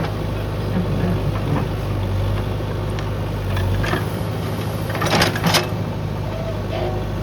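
JCB backhoe loader's diesel engine running steadily, with scattered knocks from the working machine and a louder burst of knocks and rattles about five seconds in.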